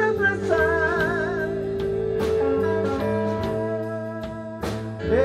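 Live electric blues band playing: drum kit, keyboard and electric guitar. A lead line bends up into a long held note with vibrato, and bends up again near the end.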